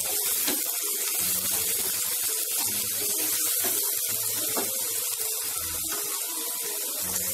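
Chopped onions sizzling steadily in hot oil in a kadhai as a wooden spatula stirs them, frying toward light golden.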